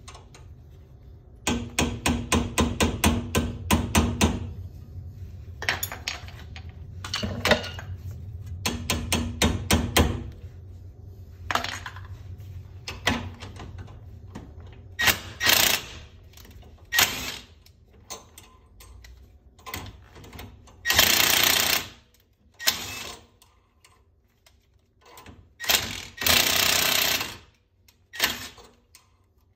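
Cordless impact wrench hammering on a wheel stud at the front hub, in repeated trigger bursts: two long rattling runs in the first ten seconds, then several shorter, sharper bursts.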